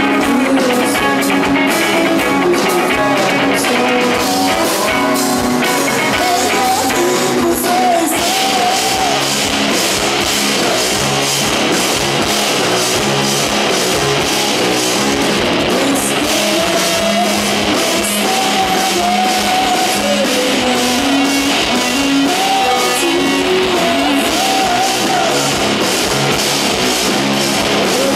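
Live stoner-rock band playing loud and without pause: electric guitar, electric bass and drum kit together.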